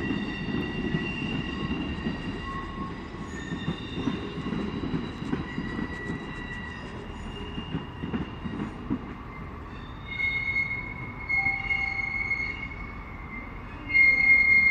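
Class 158 diesel multiple unit's wheel flanges squealing against the rail on a curve: several high, steady tones that shift in pitch over a low rumble. A stronger squeal sets in about ten seconds in and grows louder near the end.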